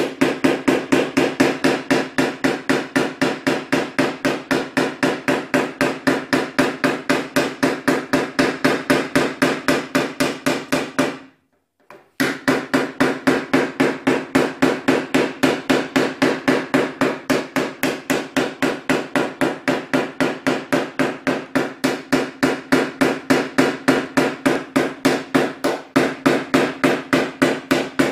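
PDR hammer tapping a knockdown punch against a Nissan Teana door panel: a long, even run of light taps about five a second, with a short pause about eleven seconds in. This is the knocking-down of the high spots and ridges around the dent.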